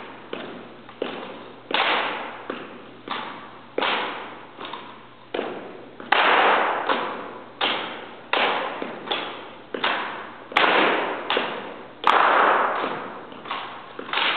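Rifle drill: a run of sharp slaps and knocks as hands strike the rifles and the rifles are snapped between positions, about one or two a second at an uneven pace, each ringing briefly in a large hard-walled hall. The loudest strikes come about six and twelve seconds in.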